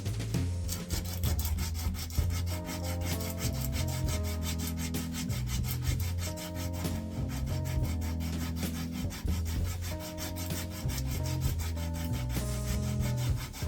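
Coarse 60-grit sandpaper wrapped on a file rubbed back and forth over a hardwood bench pin, a fast, even run of rasping strokes that keeps on without a break; background music plays underneath.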